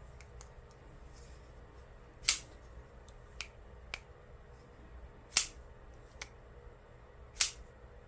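Reate PL-XT pivot-lock folding knife being worked, its blade snapping into place three times with sharp metallic clicks, about every two to three seconds, and lighter clicks from the pivot button and blade in between.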